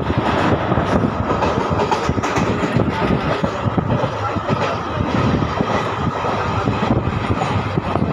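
Passenger train coach running through a station, heard from inside at an open barred window: a steady loud rumble and rattle of wheels on the rails and the moving coach.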